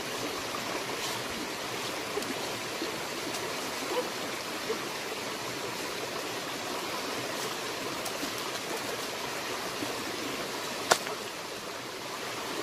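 Steady rush of a forest stream flowing, with a few light ticks and one sharp click near the end.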